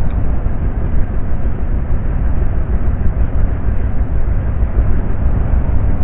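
Loud, steady rumble of wind buffeting the microphone on a moving motorcycle, heaviest in the low end, with no clear engine note standing out.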